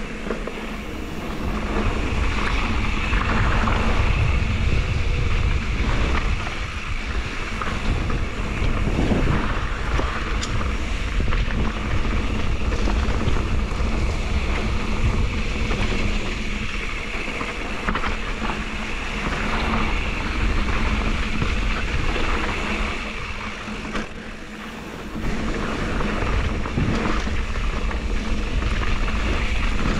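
Mountain bike descending a dirt singletrack: wind buffeting the action-camera microphone over the rumble and rattle of tyres and frame on dirt and rocks, with a few sharper knocks from bumps. The rush eases briefly late on, then picks up again.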